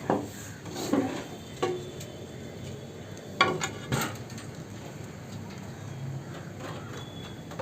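Pigeons in a loft fluttering their wings in short bursts, with a few knocks and clatters, as a pigeon is being caught by hand; the loudest flutter comes a little past the middle.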